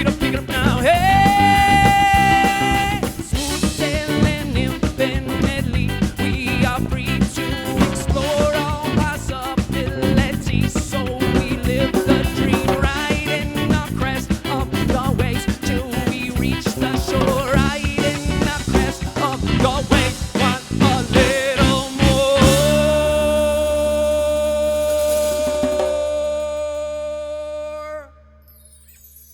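Live band music: the instrumental close of a folk-rock song, with guitars, bass and drums and a long held high note near the start. It ends on a sustained final chord that rings and slowly fades, then stops short near the end.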